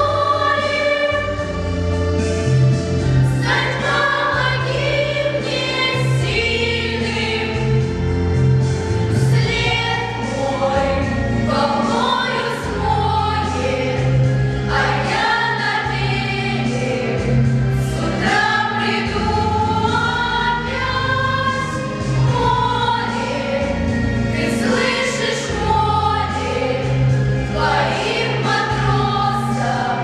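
A girls' vocal ensemble singing a song together, over instrumental accompaniment with a low bass line.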